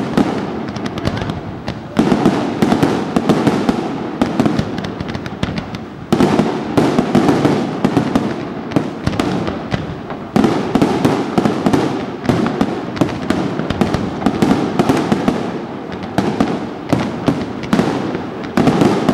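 Aerial fireworks display: dense, continuous bangs and crackling. A new loud salvo breaks in several times, about every four seconds, and each one dies away into crackle.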